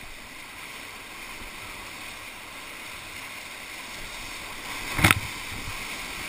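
Whitewater rushing and churning on a river wave as a kayak surfs it: a steady hiss of moving water, with one sudden loud knock about five seconds in.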